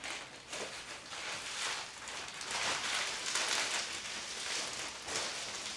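Foil-faced bubble-insulation windshield sunshade crinkling and rustling as it is unfolded and shaken open by hand, in uneven swells.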